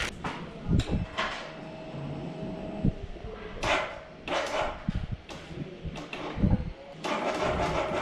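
Knocks, clicks and rubbing of a small camera being handled and set down, with two short rustling bursts about halfway through. A denser, steadier sound sets in about seven seconds in.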